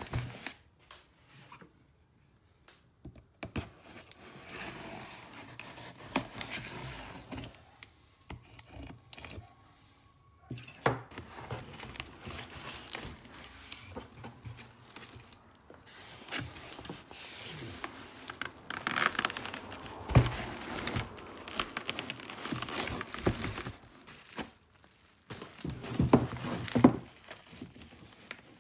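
Cardboard box being torn open by hand and plastic bubble wrap crinkling and rustling as it is handled, in irregular bursts with a couple of short quieter pauses.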